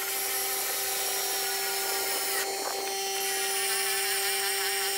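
Air compressor running with a steady hum and hiss while an air ratchet on its hose is used on the radiator support bolts.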